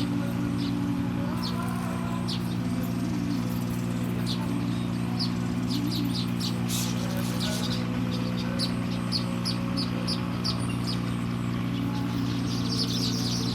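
Small birds chirping: short high chirps, one every so often and then in quick runs, growing busiest near the end, over a steady low hum.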